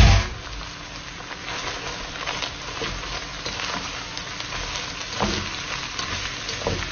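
Sliced mushrooms and onions sizzling as they fry in a pan, a steady hiss with scattered small crackles and a couple of faint knocks. A loud knock right at the start dies away within a fraction of a second.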